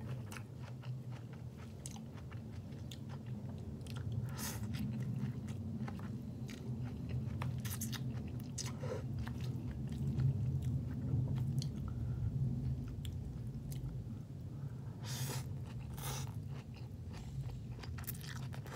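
A person chewing mouthfuls of soft baked spaghetti squash strands, with many short wet clicks and smacks of the mouth, over a steady low hum.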